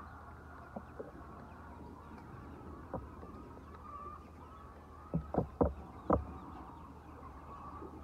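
A large flock of white laying hens clucking and murmuring steadily, with a quick run of four sharp knocks about five to six seconds in.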